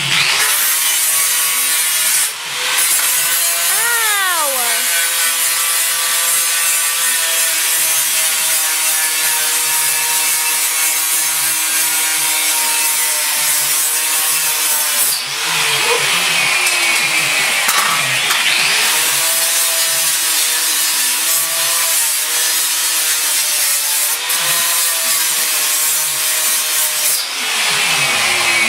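Angle grinder working on car body steel: a steady high motor whine under a harsh hiss of the disc on metal. The pitch sags and recovers about four seconds in, and the sound breaks off briefly three times.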